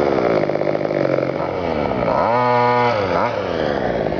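Two-stroke petrol engine of a large-scale FG RC car revving. It runs at middling revs, climbs about two seconds in and holds high for most of a second, then drops with a quick blip before falling back.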